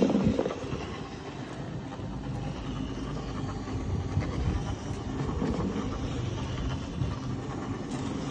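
Single-disc rotary floor scrubber running, its brush scrubbing a soap-foamed rug: a steady motor hum under continuous wet swishing, loudest at the very start.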